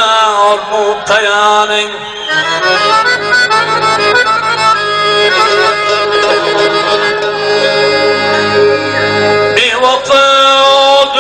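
Instrumental Uzbek traditional wedding music: a melody over steady low held notes, the low notes dropping out and a new loud phrase starting near the end.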